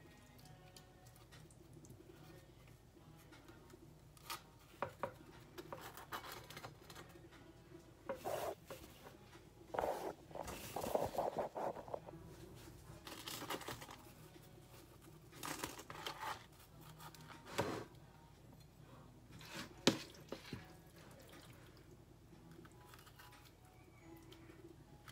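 Faint, irregular handling sounds from bread and a tea towel being moved about on a kitchen counter: rustling and crinkling with light knocks and clicks, busiest around the middle, and one sharp click about five seconds before the end.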